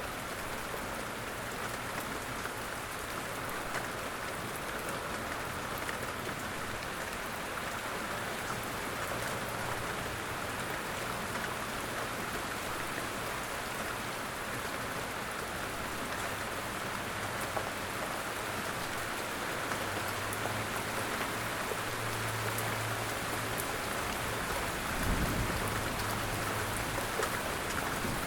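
Light rain falling steadily, an even hiss with single drops ticking through it. A faint low hum comes in during the second half, with a brief low thump near the end.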